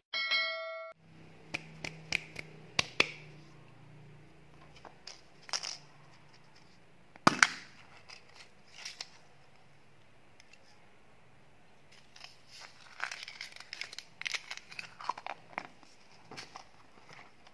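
A brief chime at the start, then hands unwrapping candy: sharp clicks and snaps of plastic packaging, including a pink plastic capsule egg being pulled open, with the loudest snap about seven seconds in. In the second half, bursts of crinkling plastic wrapper.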